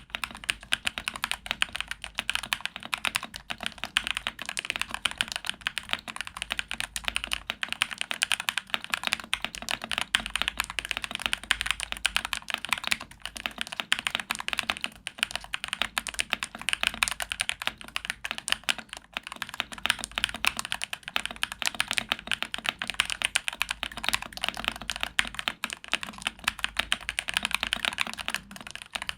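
Womier WK61 61-key mechanical keyboard, modded with lubed and filmed Epsilon switches, case foam and a tape mod, being typed on fast and without pause: a dense, continuous stream of keystrokes.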